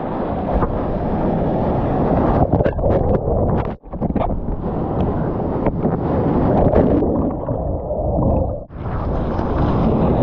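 Surf water rushing and wind buffeting a camera microphone, a dense, loud noise that cuts out sharply and briefly twice, a little before 4 seconds in and near 9 seconds.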